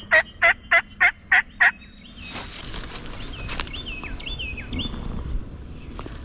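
Turkey yelping: a run of about eight loud, evenly spaced call notes in the first two seconds, followed by a few short, fainter high notes.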